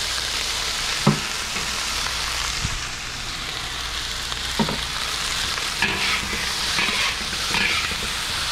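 Fried rice sizzling in a hot wok as two metal wok spatulas stir and toss it. Metal clinks sharply on the wok about a second in and again midway, with spatulas scraping the pan near the end.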